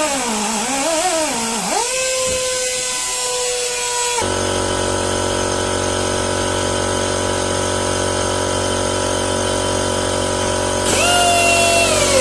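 Electric power tool buffing a truck inner tube for a hot patch: its motor pitch sags and recovers as it is pressed on. About four seconds in, the sound switches abruptly to a steady machine hum with many fixed tones, and the power tool's falling whine returns near the end.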